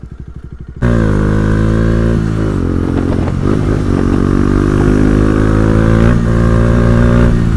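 Motorcycle engine: for under a second a low, even pulsing like an idle, then abruptly loud and running at a steady speed, with two brief dips in pitch that recover, as when the throttle eases or a gear changes.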